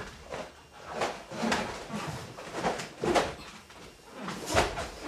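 A karateka's gi snapping and bare feet sliding and stepping on a wooden floor as a kata is performed at speed: a run of short, sharp swishes and light thuds, roughly one every half second to second, with the loudest about four and a half seconds in.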